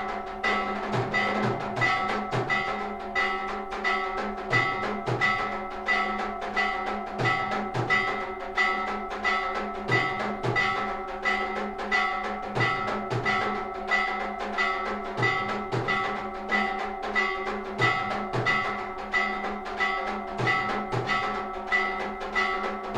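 Temple aarti percussion: metal bells ringing in a steady rhythm, about two strokes a second, with drum beats underneath.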